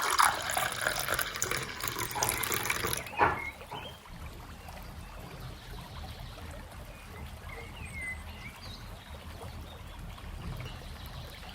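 Water running and splashing for about three seconds, then stopping with a short splash. Afterwards only a faint low hum remains.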